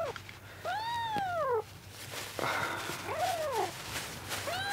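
Kitten mewing: a short cry at the start, then three drawn-out high mews, each rising and then falling in pitch.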